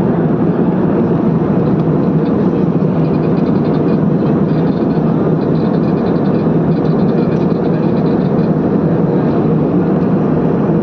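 Steady, even rumble of an aircraft cabin in flight.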